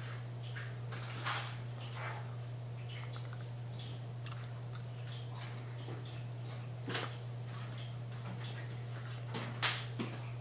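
A steady low hum with scattered, irregular faint clicks and ticks; the sharpest click comes near the end.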